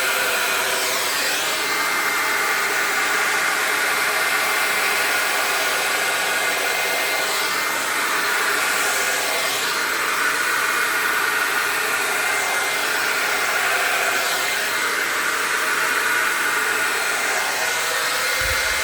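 Handheld hair dryer running steadily, blowing wet pour paint across a canvas: a continuous rush of air with a steady whine on top.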